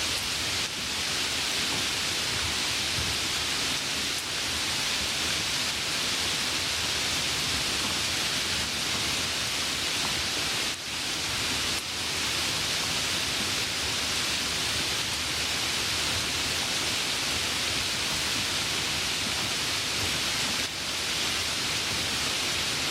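Light rain falling: a steady, even hiss of many fine drops, with a few brief dips in loudness.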